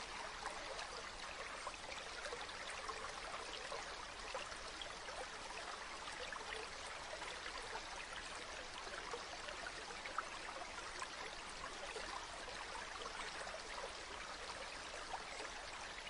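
Flowing water rushing steadily, with small splashes scattered through it.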